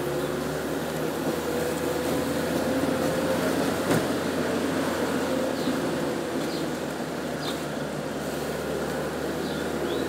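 Car engine and road noise heard from inside the cabin of a slowly moving car: a steady hum with a single knock about four seconds in.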